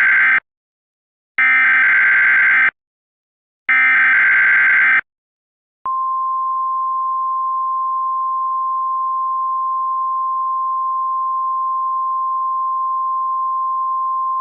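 Emergency Alert System SAME header: the end of the first of three harsh digital data bursts, then the second and third, each about a second and a half long with short gaps between. About six seconds in, a steady single-pitch NOAA Weather Radio 1050 Hz warning alert tone starts and holds unbroken.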